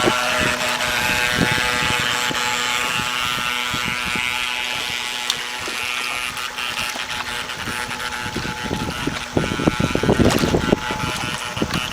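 Electric motor of a model boat, a Graupner Speed 700BB Turbo Neodym, whining steadily as the boat runs. A rumbling noise rises briefly near the end.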